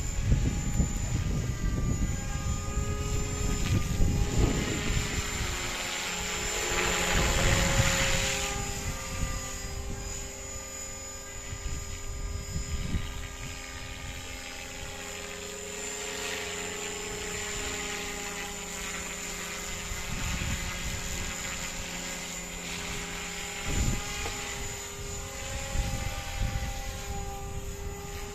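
RC scale Cobra model helicopter flying: a steady motor and rotor whine whose pitch sags and rises gently as it manoeuvres, with bursts of low rumble in the first several seconds.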